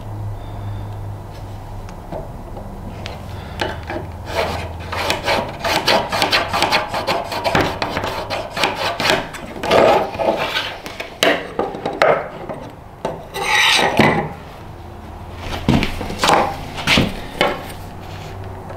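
Pencil scratching marking lines on a small metal disc along a steel rule and combination square, in a run of short strokes with light knocks as the square is moved and set down. A low steady hum sits underneath.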